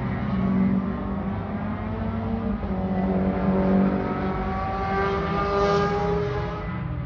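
Car engine running on the move, its pitch climbing slowly as it revs up through the middle, then easing off near the end.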